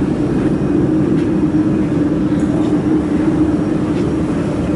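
Laser welding machine setup powered up and running with a steady mechanical hum and a strong low drone.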